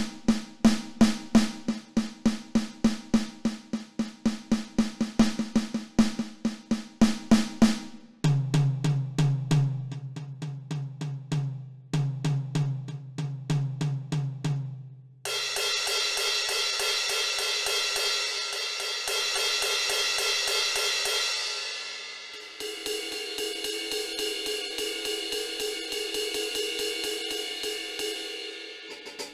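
Donner DED-200 Lite electronic drum kit sounding through its module. One drum pad is struck about three times a second, then a lower-pitched tom in two runs, then cymbals over and over. Every pad is single-zone, so each hit gives the same sound wherever it lands.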